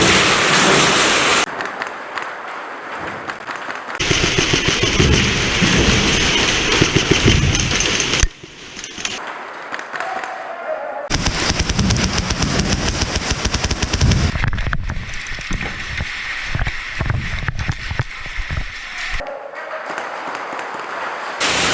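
Airsoft guns firing rapid full-auto bursts, a fast run of sharp clicks, with the sound changing abruptly several times.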